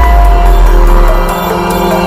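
Background music: sustained held tones over a deep bass.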